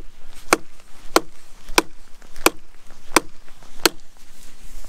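Bushcraft knife chopping into a rock-hard pine branch: six sharp, evenly spaced blade strikes into the wood, about two-thirds of a second apart.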